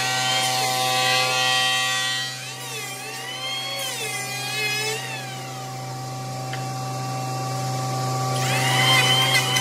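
Electric hand planer running and shaving the edge of a wooden board. Its whine dips and rises in pitch as it cuts, strongest near the end.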